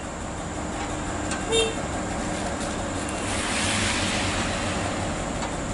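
Scania R580 truck's V8 diesel engine running with a steady low rumble. A short squeak comes about one and a half seconds in, and a soft hiss swells and fades a little past halfway.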